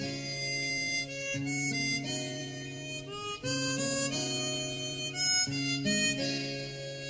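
Instrumental music led by a harmonica playing a melody of held notes, over a light accompaniment.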